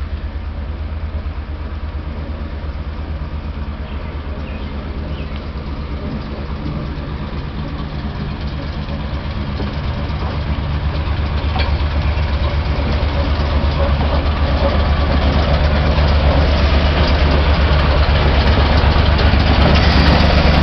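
Diesel locomotive engine running with a steady low hum that grows louder through the second half as the locomotive draws near.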